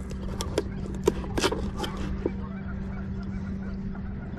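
Knife cutting through a small baitfish on a plastic cutting board: several sharp clicks and knocks in the first two seconds or so. A steady low motor hum runs underneath.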